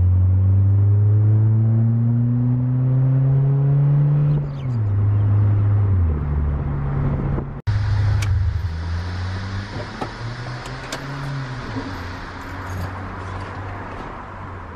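A Honda Prelude's H22A4 four-cylinder engine heard from inside the cabin under way: the engine note climbs with the revs and drops at each gear change. After a sharp break the note climbs once more, eases off and fades.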